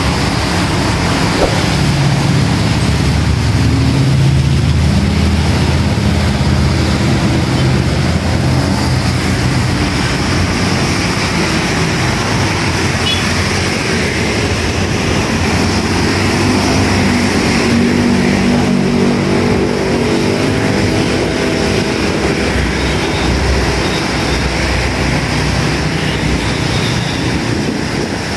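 Busy road traffic on a wet road: cars, motorcycles and a truck passing, their engines humming under a steady hiss of tyres on wet asphalt and rain. An engine note rises about two-thirds of the way through as a vehicle speeds up.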